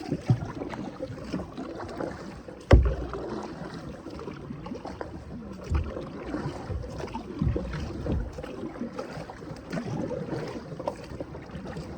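Kayak paddling: the paddle dipping and splashing through river water in uneven strokes, with soft low thumps and one sharp knock about three seconds in.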